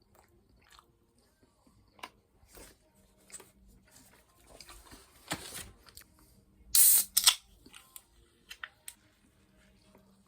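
Close-miked eating sounds: chewing, biting and mouth clicks, with two loud, short, hissy noises about seven seconds in.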